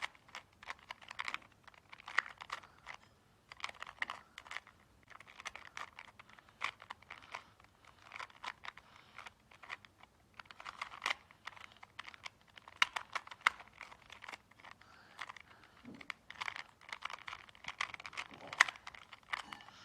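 A 2x2 Rubik's cube being turned quickly by hand during a speed solve: bursts of rapid plastic clicks as the layers rotate, broken by short pauses between runs of moves.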